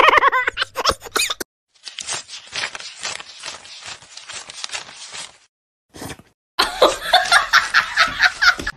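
A brief yowling cry that cuts off about half a second in. Then a few seconds of rapid crisp flicking as paper banknotes are counted by hand. Near the end comes a burst of a person's laughter.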